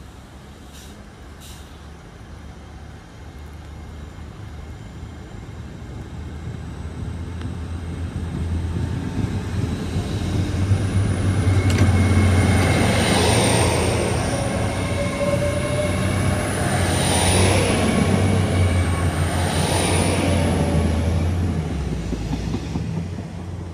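A train passing through the station: a low engine hum and rumble builds over about ten seconds, stays loud for about ten more, then falls away near the end. A high, thin, wavering squeal runs through the loudest part as it goes by.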